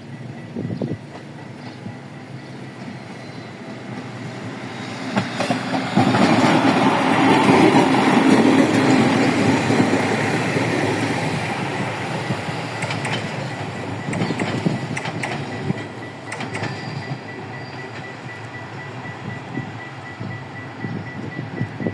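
Renfe Media Distancia passenger train passing by: it grows louder as it approaches, rises sharply about six seconds in, then fades away, with the clatter of wheels over rail joints. A faint, steady high tone sounds in the last few seconds.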